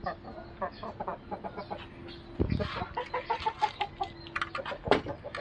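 Chickens clucking: runs of short calls from several birds, with a low thump about two and a half seconds in and a sharp knock near the end.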